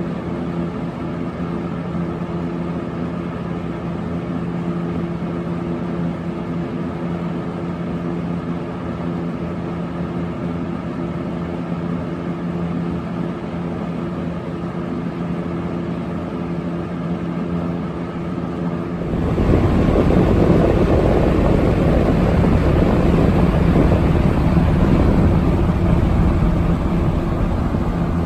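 1979 Kmart K-223 20-inch box fan with a Lakewood shaded-pole motor, running with a steady hum and the rush of air from its blades. About two-thirds of the way through it gets louder, with a deep rushing of air setting in and holding.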